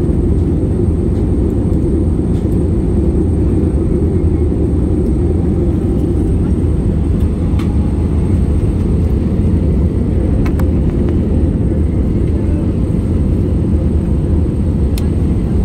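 Steady cabin noise inside an Airbus A320-family jet airliner in flight: a deep, even rumble of the engines and airflow, with a few faint clicks.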